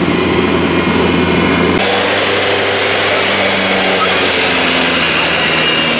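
Diesel engine of a Kubota DC70 combine harvester running steadily. About two seconds in, the sound switches abruptly to a different engine running steadily at a higher pitch.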